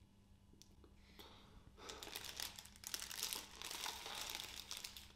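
Paper wrapper around a burger crinkling and rustling as it is handled, in irregular bursts that begin a little over a second in and fill most of the rest.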